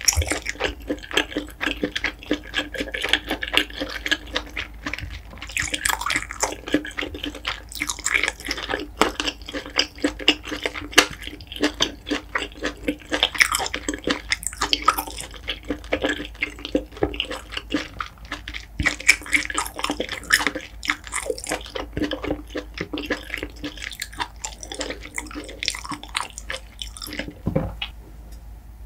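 Close-miked wet chewing of spicy steamed king scallop, a steady stream of small moist clicks and squelches from the mouth, tailing off near the end.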